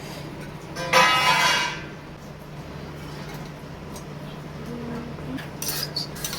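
Kitchen handling sounds as soaked nuts and seeds are spooned from bowls into a mixer-grinder jar: a brief scrape about a second in, then a few light clinks near the end.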